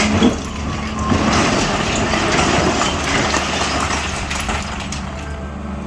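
Long-boom SANY 365H excavator's diesel engine running steadily. A heavy noise lies over it and drops away about five seconds in, leaving the engine quieter.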